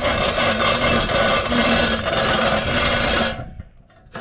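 One long, hard breath blown onto the embers of a struggling campfire to make it catch, a loud rushing that stops abruptly about three seconds in.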